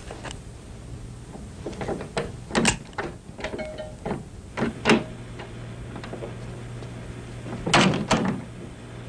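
Irregular knocks, clicks and clatter like a door being handled, loudest as a pair near the end, over a steady low hum.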